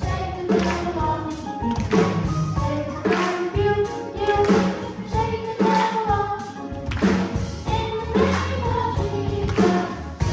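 Children's gospel choir singing over instrumental accompaniment with a steady beat.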